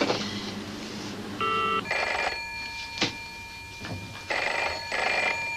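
Home telephone bell ringing in the British double-ring pattern, starting about two seconds in, with a pair of brr-brr rings near the end.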